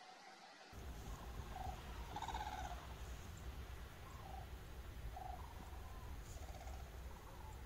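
Red-crowned cranes giving short calls, half a dozen in all, the strongest and longest about two seconds in, over a steady low rumble.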